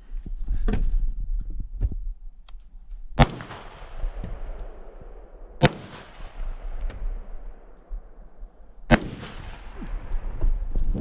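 Three rifle shots fired at a steady pace, about two and a half and then three seconds apart, each followed by a long rolling echo.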